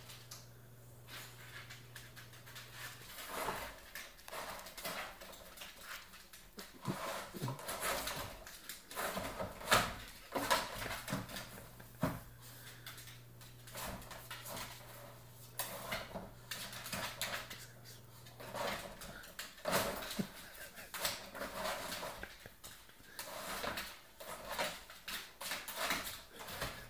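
An English bulldog and a Boston terrier playing at a plastic laundry basket: irregular knocks and scuffles with dog sounds, busier from about three seconds in.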